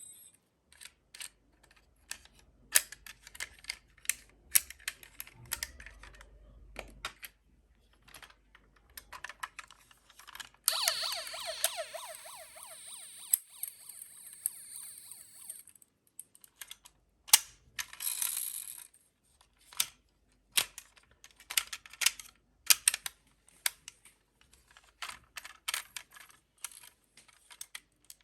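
Toy minicars clicking and clacking as plastic parts knock together and roll, in irregular sharp clicks. Partway through, a toy siren sounds for about five seconds with a fast, wavering wail, then stops.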